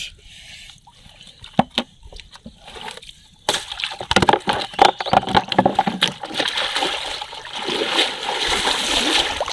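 Water splashing. A few faint knocks come first, then a sudden loud, rapid splashing starts about three and a half seconds in and keeps on.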